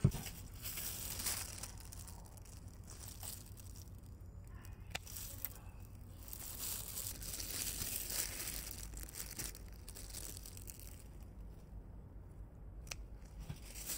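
Small scissors snipping radish seedlings at the soil line to thin the row, with soft rustling of leaves and a few sharp clicks of the blades.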